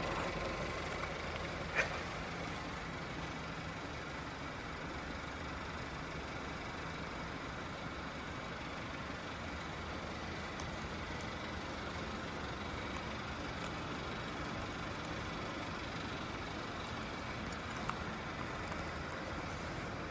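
Seat Leon FR's turbocharged 1.4 TSI four-cylinder engine idling steadily. A sharp click sounds about two seconds in, and a fainter one near the end.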